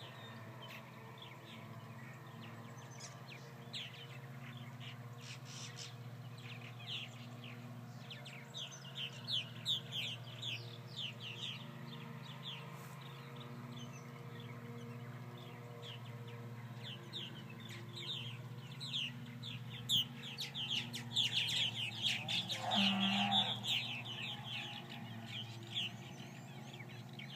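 A flock of purple martins calling on the wing around their colony housing: a continuous chatter of short, high, falling chirps, busier in two stretches, over a steady low hum.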